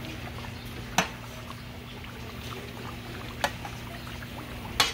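Pork bubbling and crackling in hot fat in a large metal cazo, over a steady low hum. A metal paddle knocks sharply against the pot three times, about a second in, near the middle and at the very end, as the meat is stirred.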